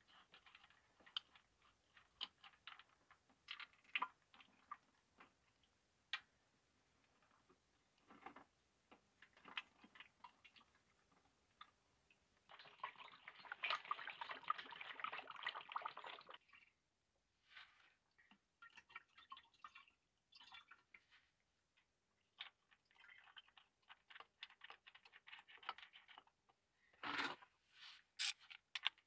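Diesel-diluted engine oil poured from a plastic jug through a funnel into a jerry can for about four seconds, around the middle, amid faint scattered clicks and drips. A single knock near the end.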